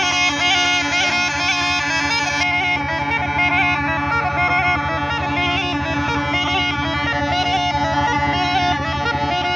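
Snake charmer's been (pungi), a gourd-bodied double reed pipe, played continuously to a raised cobra: a reedy, nasal melody over an unbroken steady drone.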